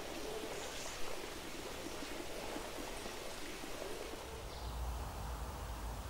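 Outdoor countryside ambience: a steady hiss with faint, distant bird calls. A low rumble comes in about four and a half seconds in.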